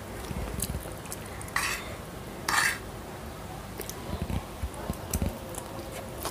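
A metal fork stirring and scooping stir-fried instant noodles on a wooden tray. There are short scrapes and clicks, and two louder scraping bursts about one and a half and two and a half seconds in.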